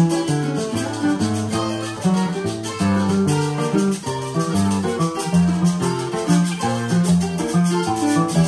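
Acoustic guitar and Puerto Rican cuatro playing an instrumental tune together, with maracas shaking a steady rhythm over the plucked strings.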